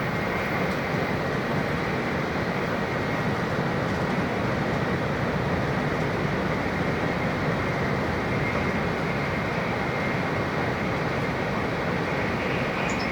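Interior running noise of an N700-series 8000 Shinkansen: a steady rumble and rush of the moving train, with a faint steady high tone.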